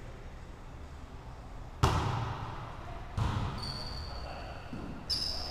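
Volleyball being struck during a rally: three sharp smacks with echoing tails, the loudest about two seconds in, the others a little after three seconds and near the end. Short high squeaks from sneakers on the wooden gym floor come in between.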